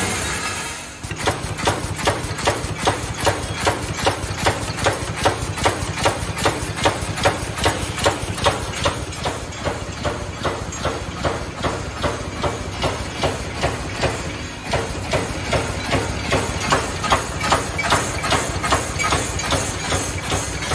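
A 2–4 mm wire cage mesh welding machine working in a steady cycle, a sharp clack about twice a second over a continuous machine hum.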